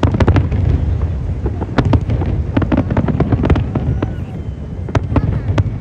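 Aerial fireworks bursting in rapid, irregular succession: many sharp cracks over a low rumble of booms, starting suddenly.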